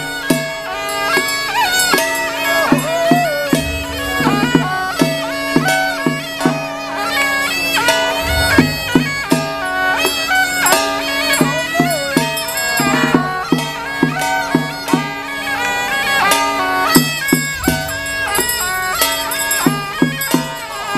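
Traditional Chinese ritual music: a loud, nasal double-reed shawm of the suona type plays a melody over a held note, with frequent percussion strikes throughout.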